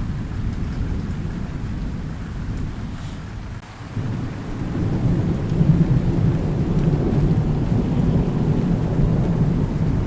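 Thunderstorm: deep rolling thunder over steady rain. The rumble dips briefly a little over a third of the way in, then swells again and keeps rolling.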